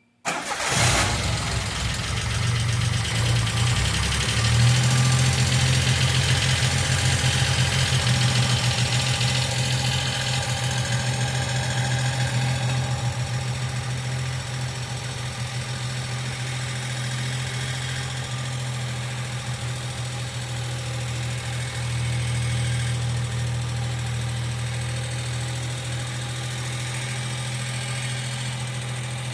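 1995 Geo Metro engine starting right at the beginning, then idling steadily, with a fine ticking that the owner puts down to the valve lifters.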